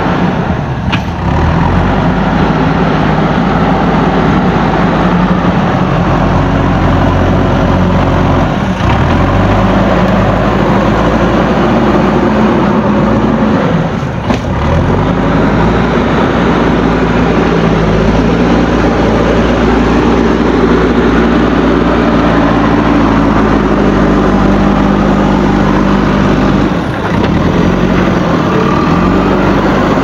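JCB backhoe loader's diesel engine running under load while the front bucket pushes and levels soil, its revs rising and falling several times.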